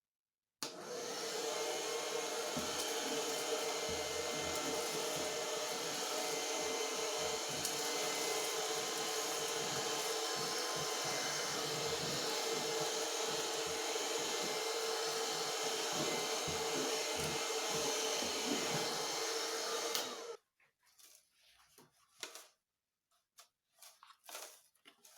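Homemade 12 V vacuum cleaner, built around the fan motor of an old hair dryer, running steadily with a motor whine and airflow rush. It switches on suddenly about half a second in and cuts off suddenly near the end, followed by a few faint knocks.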